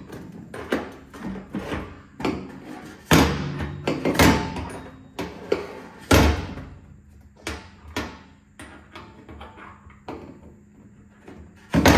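Irregular knocks and clunks of hands and a tool working inside an empty metal fuel tank through the opening in its top, with louder bangs about three, four and six seconds in.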